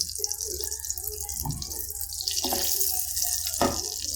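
Kitchen tap running steadily into a sink, with a sharp knock about three and a half seconds in.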